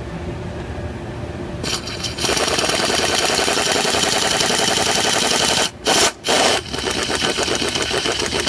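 Power ratchet running in rapid bursts, spinning out the engine block's coolant drain plug. It starts about two seconds in and pauses twice briefly near the middle.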